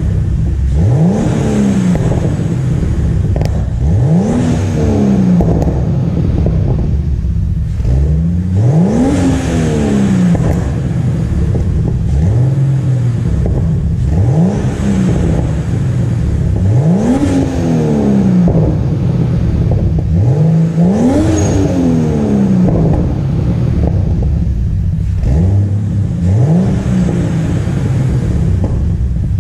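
Turbocharged BMW M52B28TU straight-six revving freely through a 3-inch exhaust with a Magnaflow muffler: about eight blips, each a quick rise in pitch and a slower fall back toward idle.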